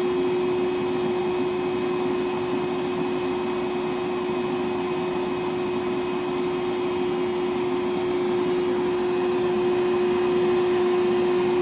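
Milwaukee M12 1.6-gallon cordless wet/dry shop vac running steadily on a 1.5 Ah battery, with a constant rush of air and a steady motor hum. It is running out its runtime test as the small battery drains.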